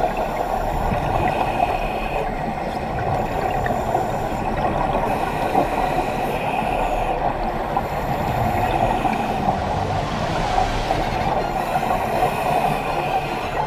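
Underwater ambience from a scuba dive: a steady muffled rush of water and exhaled bubbles from divers' regulators, with a brief louder hiss about ten seconds in.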